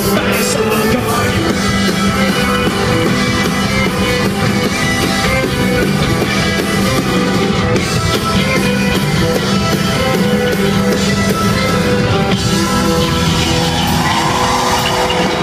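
Live rock band playing loud: acoustic and electric guitars, drums and a singer.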